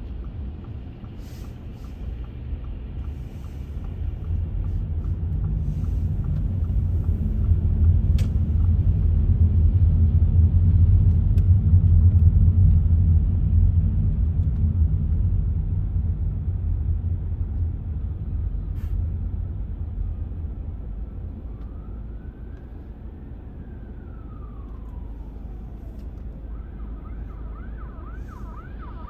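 Low road-traffic rumble that swells over several seconds and then fades. Near the end an emergency vehicle's siren begins a fast warble.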